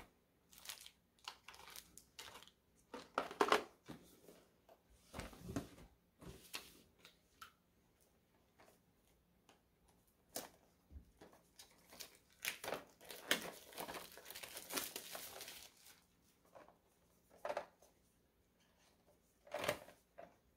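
Cardboard boxes and plastic packaging being handled and unpacked: scattered rustling, crinkling and light knocks, with a longer stretch of crinkling about two-thirds of the way through.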